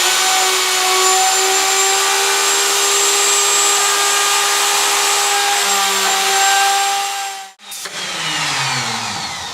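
Butt router of a Norfield 350H hinge routing station running at full speed with a steady high whine. About seven and a half seconds in it cuts out and winds down, its pitch falling.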